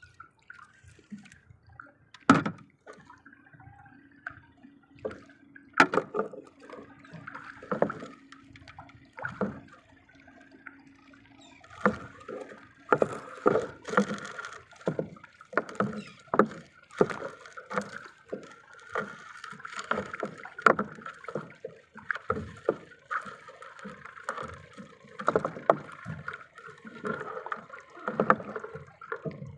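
Irregular knocks and bumps on a small fishing boat with water splashing and sloshing around it, the loudest a sharp knock about two seconds in.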